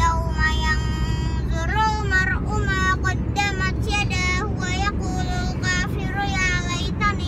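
A young girl chanting a Quran recitation in a melodic tilawah style, with long held notes that waver in pitch and brief pauses for breath. Beneath it runs the steady low rumble of the car's road and engine noise inside the cabin.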